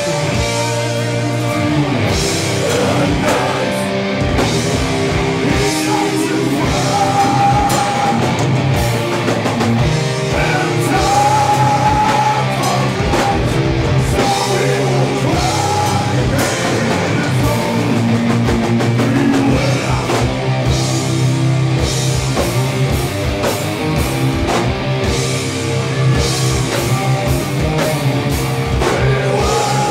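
Live heavy metal band playing: distorted electric guitars, bass guitar and a drum kit, with steady drum hits throughout.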